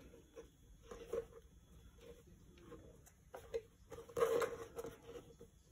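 Macramé cord being worked by hand into a square knot, with soft, irregular rustles and small taps of cord and fingers against the work surface. A louder rustle comes about four seconds in, as a cord is pulled out tight.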